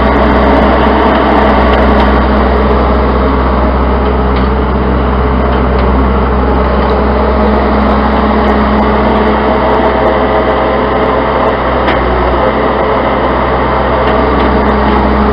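Case 90XT skid-steer loader's diesel engine running steadily and loudly while it carries a pack of hay bales.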